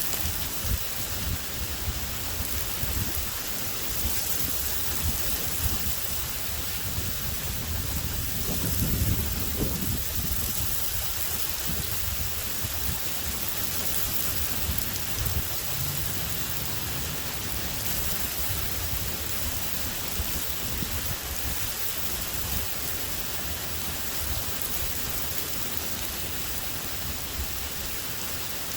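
Steady heavy rain hissing throughout, with a low rumble swelling about nine seconds in.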